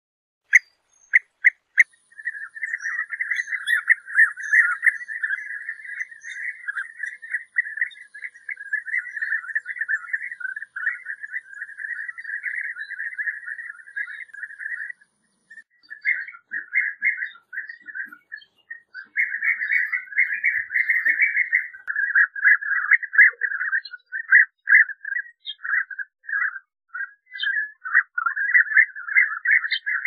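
European bee-eaters calling with their rolling, liquid 'prruip' notes. A few separate short calls come in the first two seconds, then a dense, overlapping chatter with a short break about halfway, then choppier phrases near the end.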